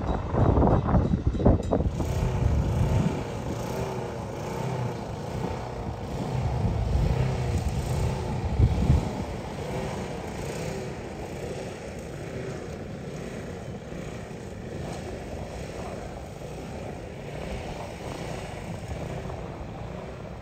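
A diesel-hauled freight train passing. Locomotive engine noise is loudest in the first few seconds and swells again about eight seconds in, then the wagons roll by with an evenly repeating wheel sound that slowly eases.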